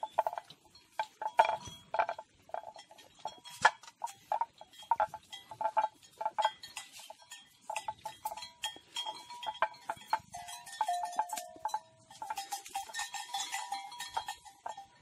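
Bells on grazing mithun and calves clanking irregularly as the animals move and feed, each knock followed by a short ringing note.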